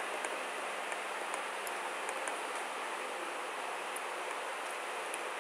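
Steady hiss of microphone and room noise, with a few faint, scattered clicks from a computer mouse as text is selected in a code editor.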